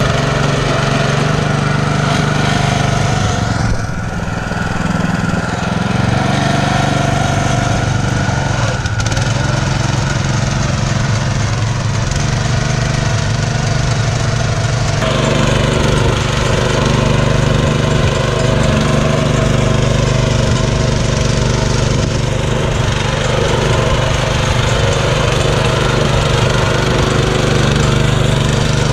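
Golden Horn 650X walk-behind cultivator's small engine running steadily under load as its rotor churns soil along the furrow. The engine's tone shifts about halfway through.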